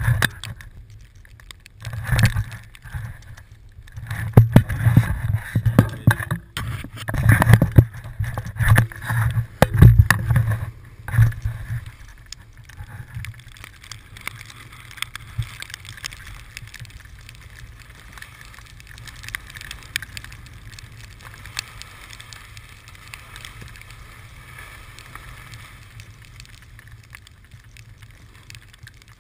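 Snowboarding noise picked up by a moving GoPro: wind buffeting the microphone and a snowboard scraping and sliding over snow. Loud, uneven gusts and scrapes for the first dozen seconds or so, then a steadier, quieter rush.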